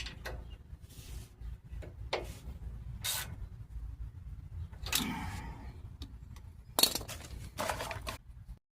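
A string of short scrapes and knocks from tools and brake parts being handled during a brake job, the sharpest knock about seven seconds in, over a low steady rumble.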